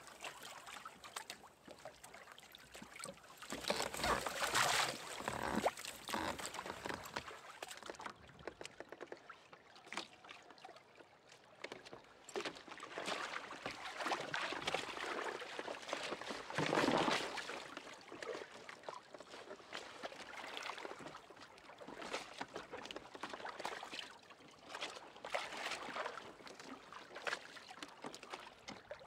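Sea water sloshing and splashing against a kayak's hull in a light chop, swelling and fading in washes, loudest about four to five seconds in and again about seventeen seconds in, with scattered small knocks.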